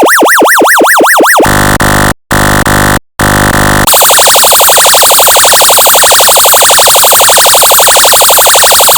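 Electronic siren tones from a function generator. First a yelp sweeping up and down about three times a second, then a buzzy horn tone in three short blasts, then from about four seconds a very rapid pulsing warble.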